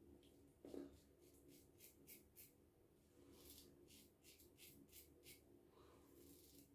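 A 1946–47 Gillette Aristocrat double-edge safety razor scraping stubble off the neck in short, faint strokes, several a second, in two runs. There is a soft low bump about a second in.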